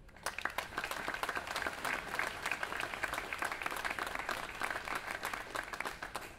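Audience applauding, many hands clapping densely; the clapping stops near the end.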